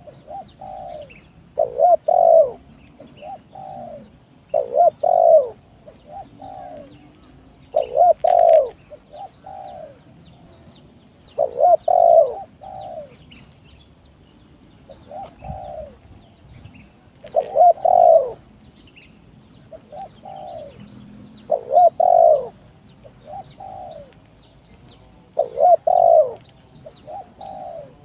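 Spotted dove (tekukur) cooing its phrase over and over, a new phrase every two to three seconds, used as a lure call to draw other spotted doves. Faint high chirps of small birds sound behind it.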